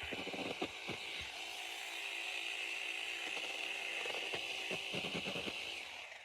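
Saker cordless mini chainsaw running, its electric motor and chain giving a steady high whine with scattered ticks and knocks, then stopping just before the end.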